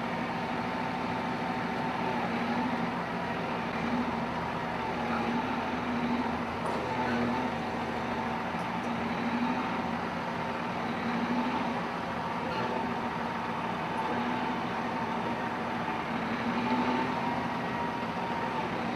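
Heavy machine's engine running steadily, its hum wavering slightly in pitch.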